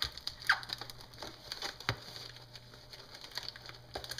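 Hands pinching and pressing a folded cardboard box shut along its taped seam: scattered crackles and taps of cardboard and tape, the sharpest about half a second and about two seconds in.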